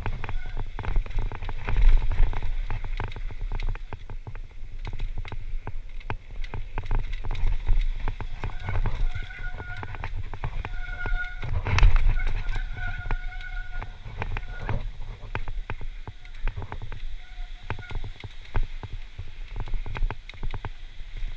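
Downhill mountain bike ridden fast over a dirt singletrack, heard from a helmet-mounted action camera: wind rumbling on the microphone and constant clatter and rattling from the bike over the rough ground. A high buzz comes and goes, and there is one heavy jolt about twelve seconds in.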